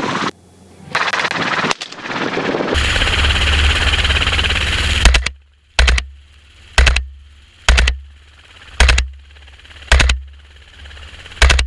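Gunfire from a helicopter hog hunt: after a few seconds of loud steady rushing noise, a run of about seven single rifle shots, roughly one a second.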